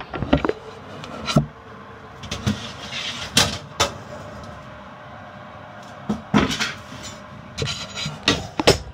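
Irregular knocks and clunks: sharp ones a little over a second in and at about three and a half seconds, then a cluster between about six and nine seconds.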